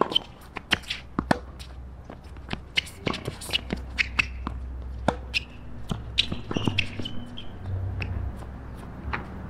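Tennis rally on a hard court: tennis balls struck by rackets and bouncing, many sharp pops at an uneven pace, with players' shoes scuffing and squeaking on the court between shots.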